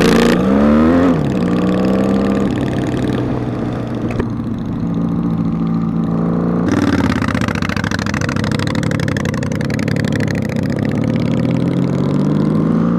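Honda Magna V-four engine pulling away under throttle, its note rising and then dropping back at gear changes, steadier while cruising, and climbing again near the end. Wind noise on the microphone comes in loudly about seven seconds in.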